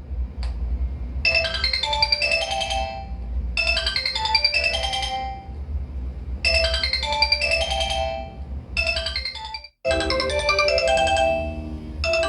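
Old mobile phone ringtone played through a Logitech Z906 speaker system: a short melody of separate notes repeated four times. It cuts off just before ten seconds in and a different, busier ringtone melody starts, with a steady low hum underneath throughout.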